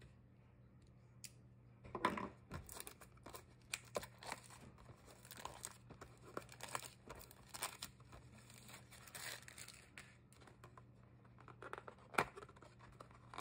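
Cellophane shrink-wrap being torn and peeled off a cardboard trading-card box: an irregular run of crackling, crinkling plastic starting about two seconds in, then the cardboard box being opened near the end.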